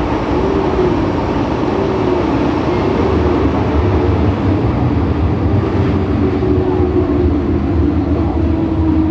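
Inside an MTR M-Train electric multiple unit on the move: a steady rumble of wheels on track under a wavering traction-motor whine, the "ghost motor" sound. Near the end the whine settles into a steadier tone that falls slightly.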